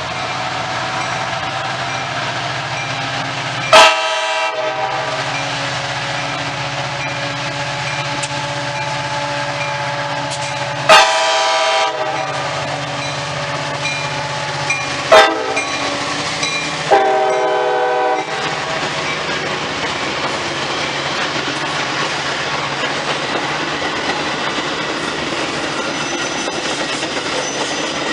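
Metra commuter train's locomotive horn sounding four blasts over the steady rumble and clatter of the moving train. The third blast is very short and the last is the longest, matching the long-long-short-long grade-crossing signal.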